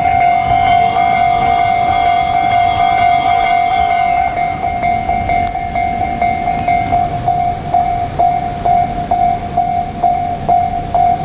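Japanese level crossing alarm bell ringing with a steady tone while a JR Kyushu 787 series electric train runs past. The train sound fades about four seconds in, leaving the bell's repeated dings at about two a second.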